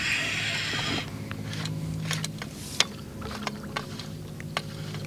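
Boat motor humming steadily while a fishing reel gives scattered sharp clicks as a hooked fish is played; a brief hissing rush in the first second.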